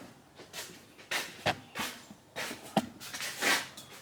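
Footsteps, about two a second and unevenly spaced, with some rustling.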